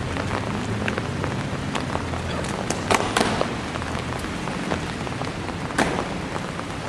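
Rain falling, a steady hiss dotted with sharp drop hits, a few louder hits about three seconds in and again near six seconds.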